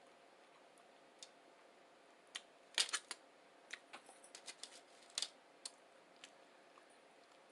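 Eating a burrito close to the microphone: faint, irregular sharp clicks and crackles of chewing. A loud cluster comes about three seconds in, then scattered single clicks.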